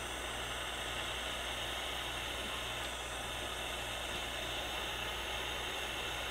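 Handheld heat-blower soldering tool blowing steadily while it heats flux-soaked desoldering braid on an IC's pins to wick away solder bridges: a constant hiss with a low hum underneath.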